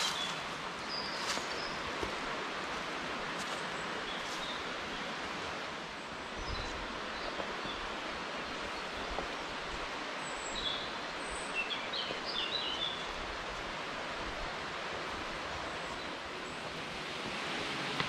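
Steady rushing of a fast mountain stream heard through the woods, with a few bird chirps over it, most of them about eleven to thirteen seconds in.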